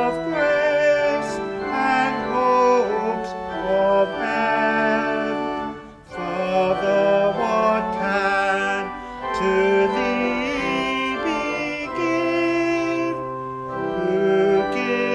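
A hymn with organ accompaniment, voices singing held notes with vibrato, with a brief break between lines about six seconds in.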